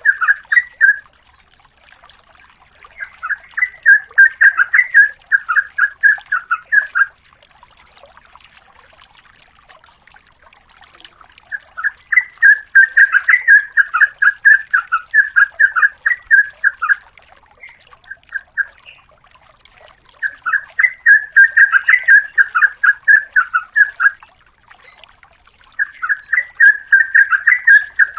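Yellow-vented bulbul (trucukan) singing in long bouts of rapid, repeated notes, each bout lasting four to five seconds with pauses of a few seconds between.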